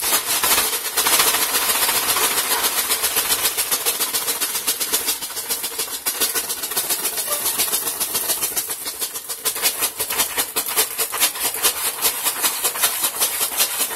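Ice rattling and plastic rustling inside a bag being shaken hard and fast by hand, a steady rapid rhythm of rattles that runs without a break, as the bag is worked to freeze an ice cream mixture.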